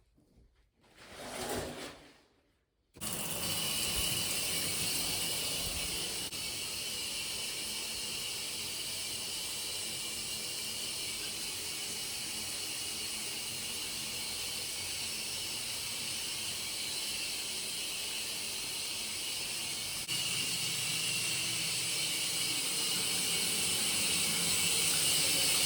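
Water running steadily, a loud even hiss that starts abruptly about three seconds in and stops sharply at the end, after a brief whoosh just before it.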